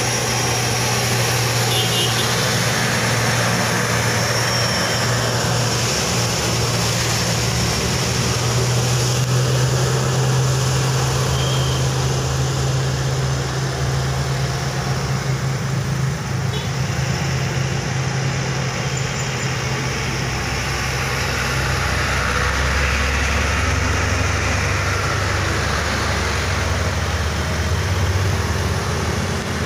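Road traffic: heavy trucks, a cement mixer among them, with their engines running low and steady as they work round a steep bend, while motorcycles and cars pass. The low engine note drops deeper about two-thirds of the way through.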